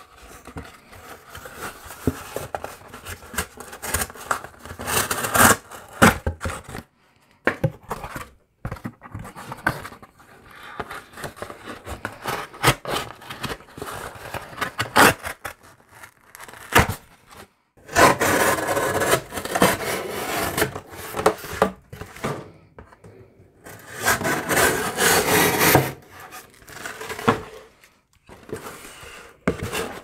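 Folding pocket knife blade slicing through corrugated cardboard: irregular rasping, sawing strokes, with the cardboard rustling and knocking on the bench between cuts. Two longer, louder cuts come in the last third.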